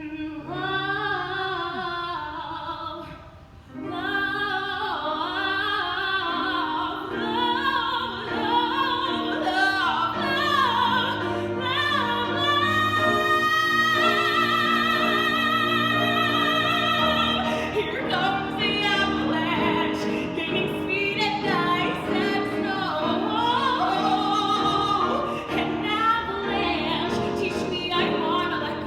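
A woman singing a musical-theatre song in a trained voice with vibrato, over sustained accompaniment. She holds one long high note from about 13 to 17 seconds in.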